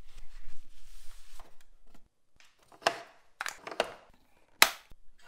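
Paper rustling, then a few sharp plastic clicks and knocks as the capsule holder is handled and slotted into a capsule coffee machine, the loudest click near the end.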